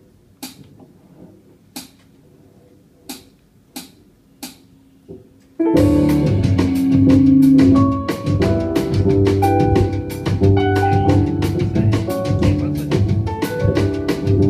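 A count-in of six clicks, two slow then four quick, then about six seconds in a violin and double bass start a song loudly over a rhythmic accompaniment with a steady beat.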